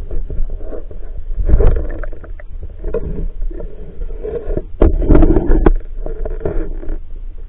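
Muffled underwater rumbling and sloshing picked up by a submerged camera in its waterproof housing, with scattered knocks. It surges louder about a second and a half in and again about five seconds in.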